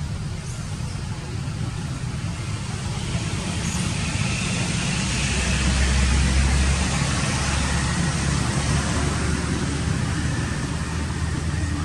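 Low rumbling outdoor noise with a steady hiss over it, swelling to its loudest about halfway through and then easing off.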